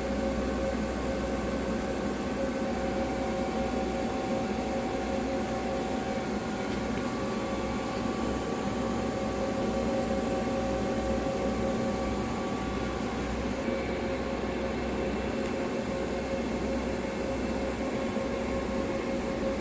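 CNC lathe running with a steady machine hum and several whining tones; one higher whine comes in about seven seconds in and stops about thirteen seconds in, as the machine goes through its return to machine reference point.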